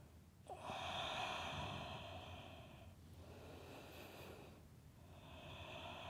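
A woman's slow, quiet breathing: a long breath starting about half a second in, a fainter one around the middle, and another beginning near the end.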